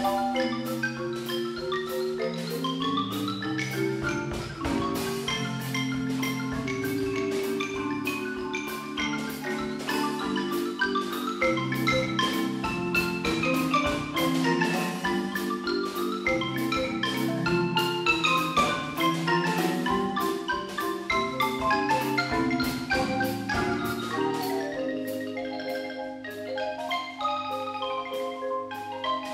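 Percussion ensemble of marimbas and other mallet keyboards playing a fast melodic piece over a drum kit keeping a steady beat. The texture thins a little near the end.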